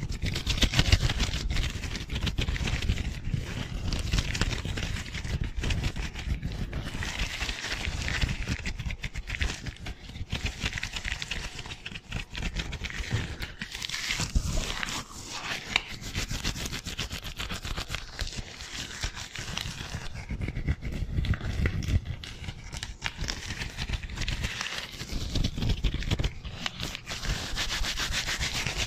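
Thin disposable gloves on both hands rubbing and crinkling together in fast, constant movements close to a microphone, with a low rumble under the crackle.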